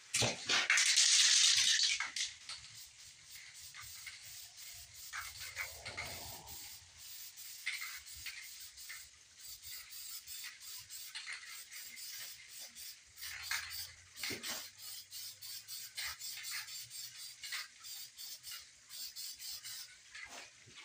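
Aerosol can of primer spraying: one long hiss of about two seconds at the start, then a run of short, quieter spurts as coats go on.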